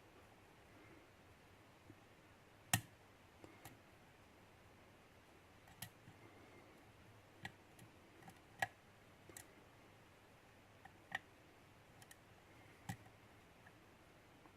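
Sparse, irregular small clicks of a lock pick working the pins inside the Bearsback Poser challenge lock, with the loudest click about three seconds in, over an otherwise near-silent background.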